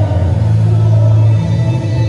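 Music with a deep, held bass drone and a few fainter sustained tones above it.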